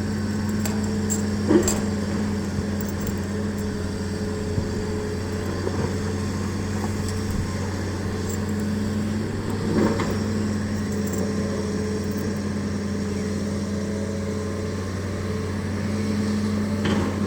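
A steady low hum of a running motor, with three brief knocks spread through it.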